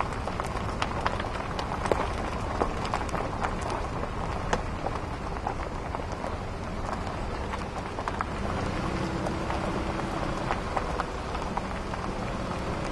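Vehicle driving slowly over a rough, muddy dirt track: steady road noise with many small irregular clicks and crackles from the tyres on the rutted ground.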